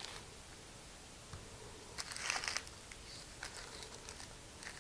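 Dry, papery onion skin crinkling as it is peeled off by hand, faint, with the loudest crackle about two seconds in and a few smaller ones around it.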